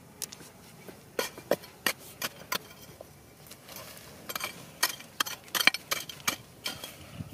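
A flat metal hand digging tool striking and scraping into dry, stony clay soil, with clods and gravel breaking loose. It makes a run of sharp knocks and scrapes, a few spaced out at first and more closely packed in the second half.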